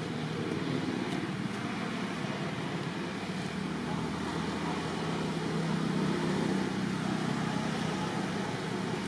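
Steady low background rumble, swelling slightly about two-thirds of the way through.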